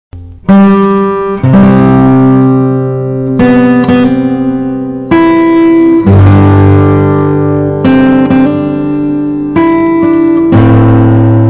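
Background music: a guitar playing slow chords that start about half a second in, a new chord struck every second or two and left to ring.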